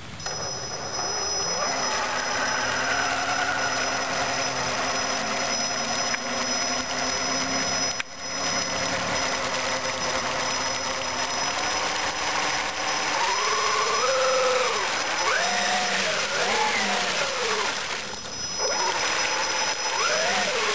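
Electric motor of a 1/6-scale RC monster truck whining as its big tyres churn through pond water. From about two-thirds of the way in, the whine rises and falls again and again with the throttle.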